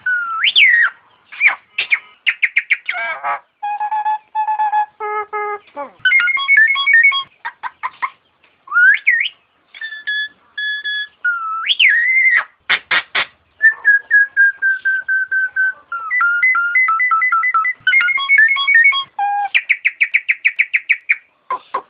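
Nias hill myna calling in a varied stream of loud whistles, rising glides and nasal stacked notes, broken by sharp clicks about halfway through and ending in a fast run of quick repeated notes.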